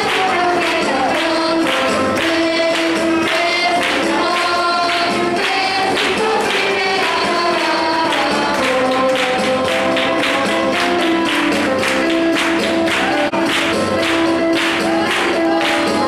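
Christian praise song: a group of voices singing with a tambourine beating steadily.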